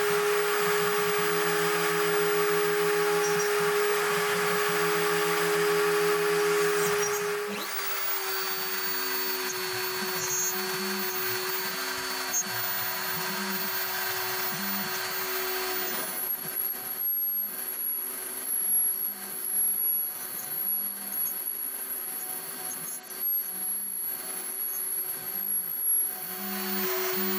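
CNC router milling a wooden board: the spindle runs with a steady whine while the stepper motors hum in short stretches as the axes move. The pitch shifts slightly about eight seconds in, and the cutting noise grows more uneven in the second half.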